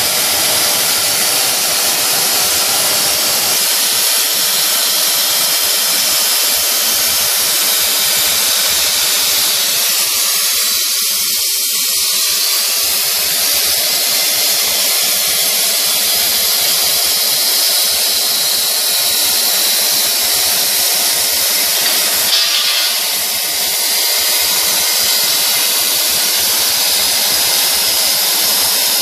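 Mini CNC machine running: a steady, high hissing whine from its small spindle motor, with one brief knock a little past three quarters of the way through.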